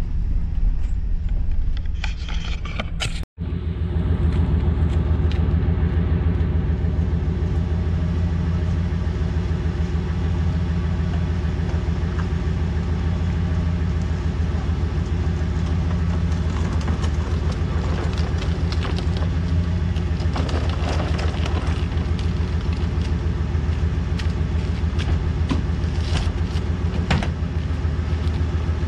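Van engine idling steadily close by: a constant low rumble, with a brief break about three seconds in and occasional light clicks and knocks over it.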